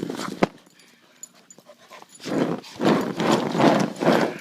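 Puppy vocalizing in a quick run of short, rough bursts about halfway through, after a single sharp click near the start.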